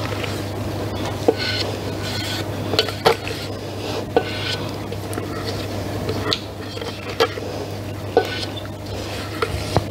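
Spatula scraping thick chocolate glaze out of a Thermomix's stainless-steel mixing bowl, with sharp knocks of the spatula against the bowl about once a second. A steady low hum runs underneath.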